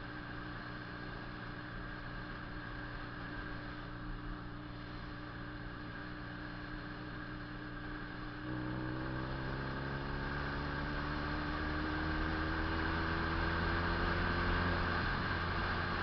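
Honda CB 400 II motorcycle's air-cooled parallel-twin engine running at a steady speed, then about halfway through getting louder as it pulls and rising slowly in pitch, with a brief break near the end.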